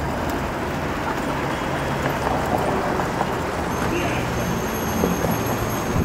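Steady street traffic noise heard from a moving bicycle riding among a group of cyclists, with a faint low hum of a motor vehicle through the middle.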